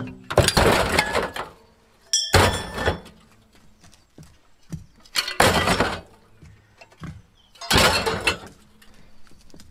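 Cut-up steel tubes of an old Gazelle bicycle frame thrown into a plastic bin of scrap metal and tin cans: four loud metallic crashes about two seconds apart, each clattering and ringing out for about a second, with light clinks of metal between them.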